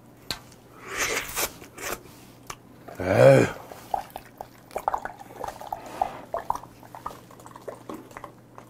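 Makgeolli poured from a plastic bottle into an earthenware bowl: irregular gurgles and drips, thickest from about four seconds on. A brief voiced sound about three seconds in is the loudest moment.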